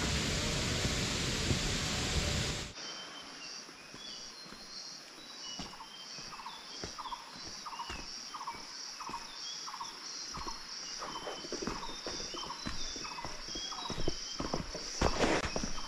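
Loud rushing water for the first few seconds, cut off suddenly. Then forest sounds: a steady high insect buzz, a short animal call repeating about twice a second, and scattered bird chirps.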